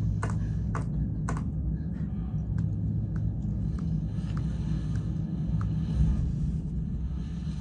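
Film soundtrack in a wordless pause, played over a hall's speakers: a low steady hum and rumble with a light tick repeating about every half second, sharper in the first second and a half.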